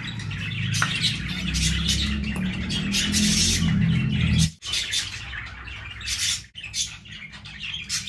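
Small cage birds chirping and tweeting repeatedly. A low rumble runs under them for the first four and a half seconds and stops abruptly.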